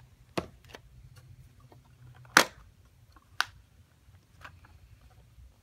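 Sharp plastic clicks and snaps from a robot vacuum's dust bin being handled and opened, three distinct ones with the loudest about halfway through.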